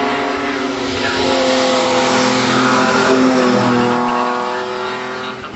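A classic sports car's engine pulling hard up a hillclimb course as it passes close by and goes on away. The engine note drops about three and a half seconds in, as at a gear change, then rises again, and the sound fades a little near the end.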